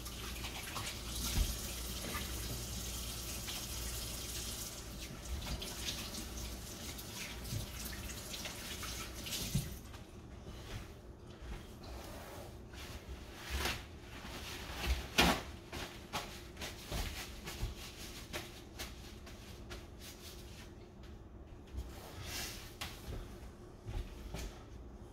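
Kitchen sink tap running for about the first ten seconds, then shut off. After that come scattered clinks and knocks of things handled at the sink, the loudest a sharp knock about fifteen seconds in.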